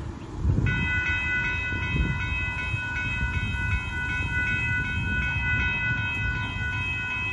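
Railroad grade-crossing warning bells start ringing about a second in: a fast, steady, repeated ringing that signals an approaching train, over a low rumble of background noise.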